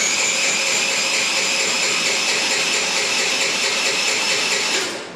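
A Tao Tao 50cc GY6 (139QMB) scooter engine being cranked on its electric starter for about five seconds, with the spark plug out and a compression gauge in the plug hole. It makes a steady whine that starts suddenly and cuts off near the end. This is a compression test: the gauge climbs to 160 psi, exactly where a healthy engine should be.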